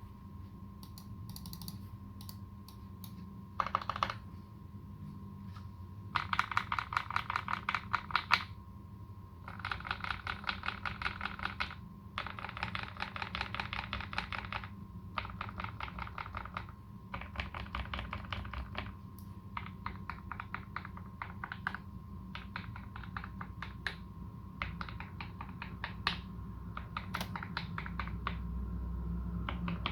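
Typing on a Canoe Gen2 custom mechanical keyboard with modded Alpaca v2 linear switches and GMK Dolch keycaps. Runs of fast keystrokes a few seconds long come with short pauses between them, after a brief flurry about four seconds in.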